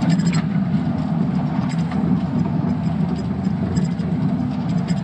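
Mack Granite dump truck's diesel engine heard from inside the cab while driving, a steady low drone with a few faint ticks.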